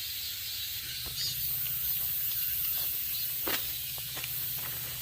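Footsteps pushing through forest undergrowth, with scattered crackles of twigs and dry leaves, a sharper snap about three and a half seconds in, over a steady high hiss.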